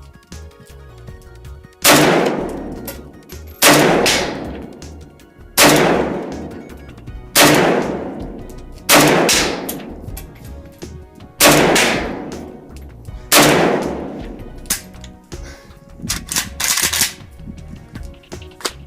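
Zastava O-PAP AK-pattern rifle in 7.62x39 firing seven semi-automatic shots at a steady pace, about one every two seconds, each with a long echoing tail. The magazine feeds without a malfunction. A few lighter sharp cracks follow near the end.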